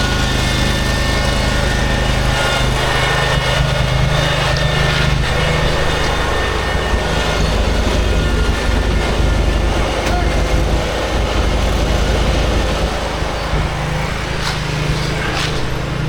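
Small gasoline engine of a concrete power buggy running steadily, with a few knocks near the end.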